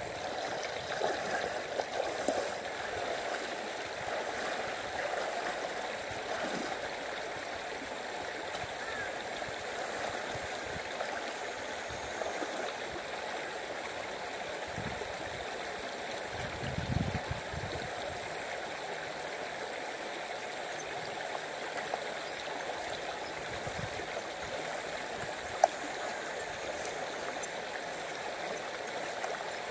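Steady rush of shallow river water flowing over the riverbed, with a short low bump about halfway through.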